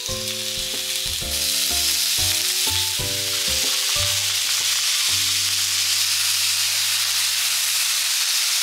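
Thin slices of beef chuck sizzling loudly on a hot cast-iron grill pan as they are laid down with tongs; the sizzle grows louder about a second in as more meat goes on. Background music with sustained notes plays underneath and stops near the end.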